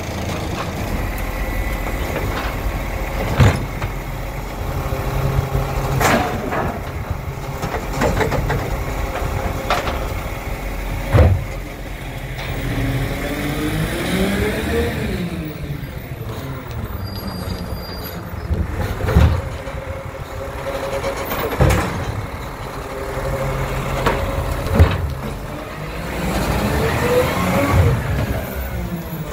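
Side-loader garbage truck working at the kerb: its diesel engine runs steadily and revs up and down twice as the hydraulics work, with several sharp bangs as bins are handled.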